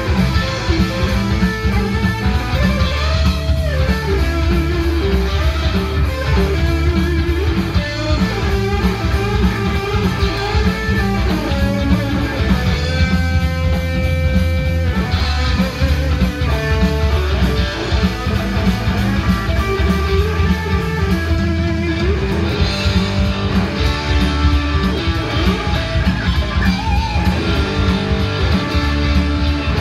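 Electric guitar played as a lead over a steady low bass line: notes bent and shaken with vibrato, with one long sustained note about halfway through.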